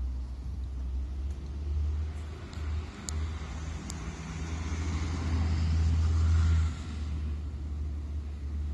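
Road traffic: a vehicle passes close by, its noise building for a few seconds and falling away sharply about seven seconds in, over a steady low traffic rumble.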